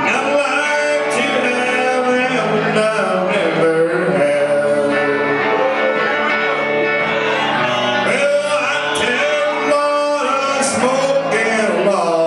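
Live country band playing at full volume, led by electric guitar, with a man singing.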